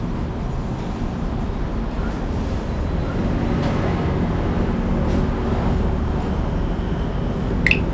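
Steady low rumble of street traffic, with a short high-pitched squeak near the end.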